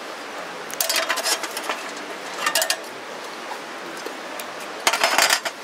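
Wood and metal clattering and scraping against a portable galvanized-steel fire-pit grill, in three short bursts: about a second in, at two and a half seconds, and near the end.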